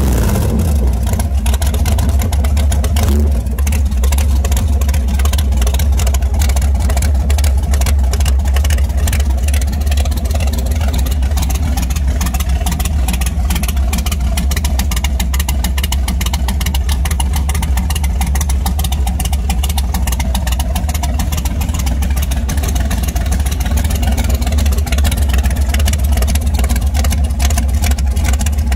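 Boss Hoss custom motorcycle engine idling steadily, heard close to its twin-outlet chrome exhaust with a deep, even low rumble.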